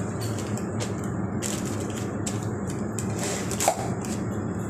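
Piston compressor running with a steady low hum and irregular light clicks and rattles over it; a brief sharp louder sound about three and a half seconds in.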